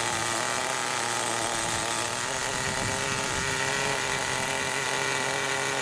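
Small engine of a radio-controlled car idling steadily at a fixed high pitch.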